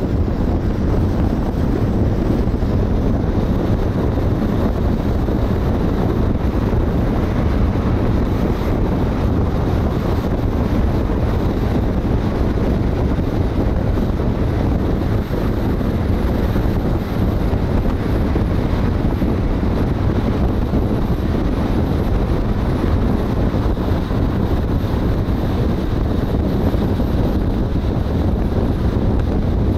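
Steady wind buffeting on an outside-mounted camera microphone, mixed with tyre and road noise from a car driving at highway speed.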